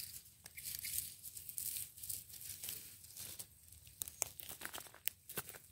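Rustling and crackling, with a run of sharp clicks and snaps in the second half.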